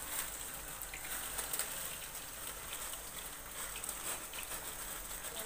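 Jaggery syrup with oil at a boil in a pot, a steady bubbling with a dense crackle of small pops, as bundles of thin semolina vermicelli are lowered into it.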